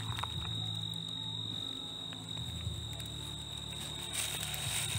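Crickets trilling steadily in one high, unbroken tone, with a low steady hum underneath.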